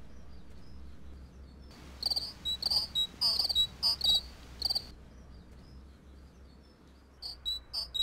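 Short, high-pitched chirps come in quick irregular runs, a few each second, starting about two seconds in, pausing after about five seconds and resuming near the end. A faint steady low hum lies under them.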